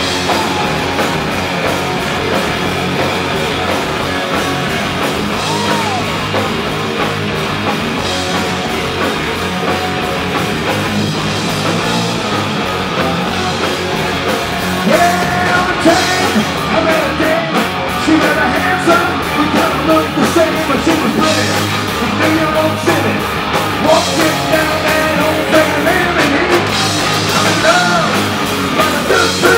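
Live rock band playing loudly with electric guitars and drum kit. From about halfway through, a louder lead part with bending notes rides over the band.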